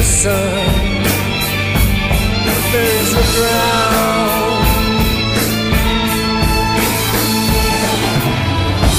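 Background music: a song with a steady drum beat, a sustained bass line and a singing voice.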